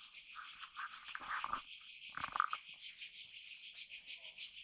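A steady, quickly pulsing insect chorus, with two short faint scrapes as a tyre plug insertion tool is forced into the puncture in the tread.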